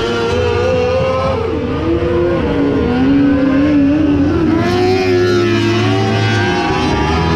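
Engines of small open-wheel race cars running as they lap a dirt oval, loud and continuous, the engine pitch rising and falling with the throttle.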